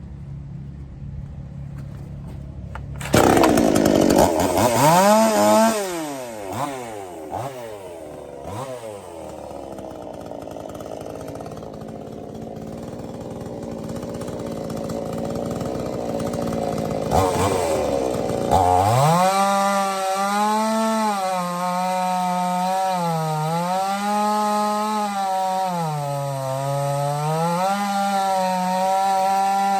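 Supmix 60cc two-stroke gas chainsaw engine run up hard about three seconds in and revved up and down several times. From about nineteen seconds it holds steady high revs with small dips in pitch.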